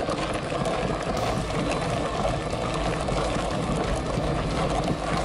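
Mountain bike labouring up a very steep dirt climb, heard from a camera fixed to the bike: steady noise of the tyres on the ground and the drivetrain under load, with a dense clicking rattle.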